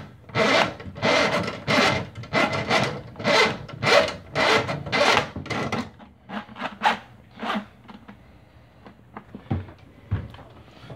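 Quarter-inch drain snake cable rasping and scraping inside a laundry drain pipe and its P-trap, worked in rhythmic strokes of about two a second. After about six seconds the strokes become shorter and fainter and then thin out.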